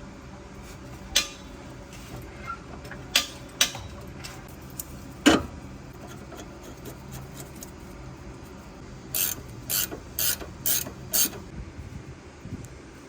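Ratchet wrench clicking on a sway bar link nut: a few separate metal clicks and knocks first, then a run of about six short ratcheting strokes, roughly two a second, near the end.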